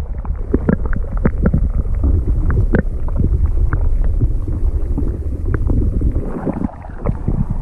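Muffled water sloshing and rumbling with many small knocks and clicks throughout, as water is disturbed around the hooked magnet and its large piece of iron.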